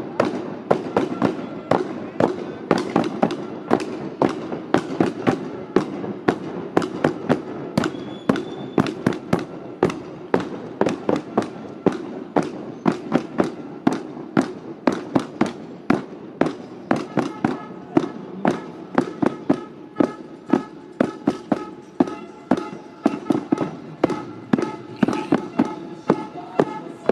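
A hand-held drum beaten in a steady marching rhythm, about two sharp strikes a second, with voices underneath.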